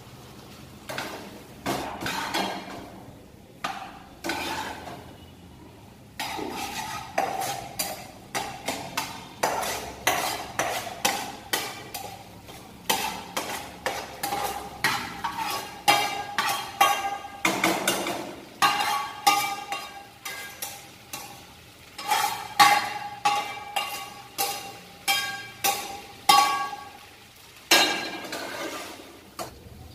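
A spatula scraping and knocking against a non-stick frying pan as cooked rice and scrambled egg (bhurji) are stirred and mixed together. The strokes come in quick repeated runs with light clinks of the pan. Partway through, more rice is scraped from a second pan into it.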